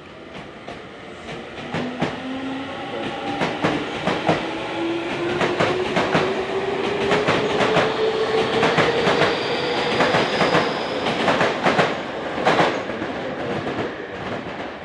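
Tokyu 6000 series electric train pulling away from a station: the traction motor whine rises steadily in pitch as it accelerates, and the wheels clack over rail joints faster and louder as the cars pass.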